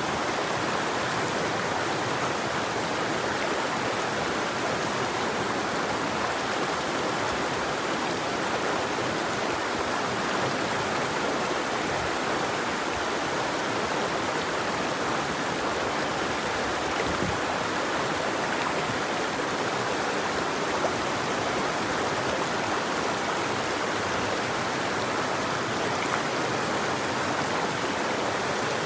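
River water flowing steadily over stones, an even rushing with no birds.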